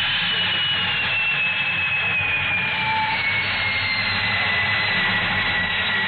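Jet aircraft sound effect: a steady jet roar with a high whine sliding slowly down in pitch, as the jet comes in to land.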